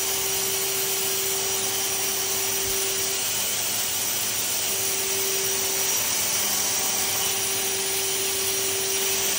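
Green coffee bean loader feeding a 30 kg batch into a coffee roaster, running steadily with an even rushing noise and a steady hum. The hum drops out for a second or so about three seconds in.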